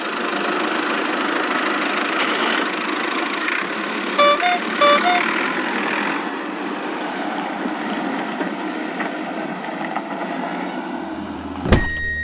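Cartoon vehicle engine sound effect running steadily, with two short two-note horn toots about four seconds in and a sharp click near the end.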